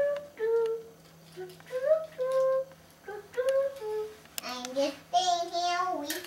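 A young boy singing to himself in a string of short held notes that step up and down in pitch, with a louder, wavering stretch near the end.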